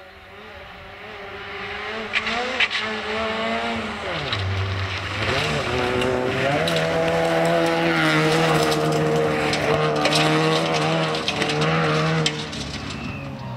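Peugeot 309 GTi rally car running hard on a gravel stage, getting louder as it approaches. Its engine note climbs, drops sharply about four seconds in, then rises again and is held high, with scattered crackles throughout.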